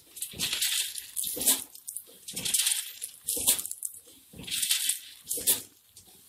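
Automatic snack pouch packing machine running, with light dry fryums rattling over its stainless-steel cup-filler disc. It goes in a cycle of about every two seconds: a half-second rattling rustle, then about a second later a sharp clack.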